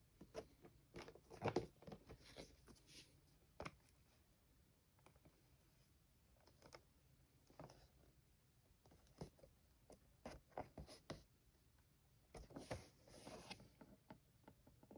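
Faint, irregular handling noises from a boxed action figure's packaging: scattered clicks, taps and crinkling rustles of cardboard and plastic. They come in louder clusters about a second and a half in and again near the end.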